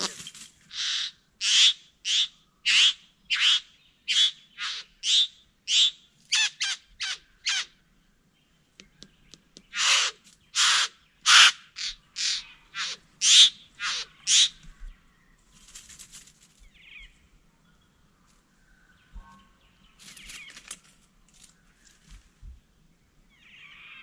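Satin bowerbird giving harsh, loud calls during a courtship display. A run of about a dozen notes comes roughly two a second and quickens near the end; after a short pause a second run of about eight follows, then only faint scattered calls and rustling.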